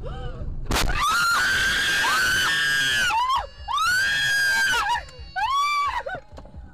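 A sharp knock, then a person screaming in three long, high cries whose pitch rises and falls, inside a car as it crashes off the road into a cloud of dust.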